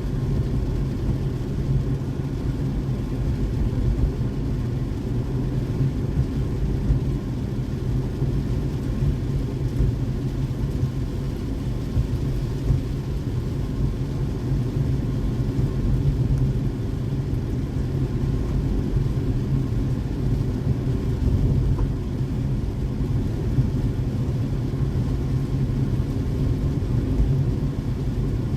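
Steady low rumble of a car driving: road and engine noise, unchanging throughout.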